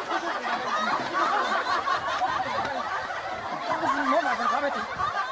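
Several people laughing and snickering at once, many voices overlapping.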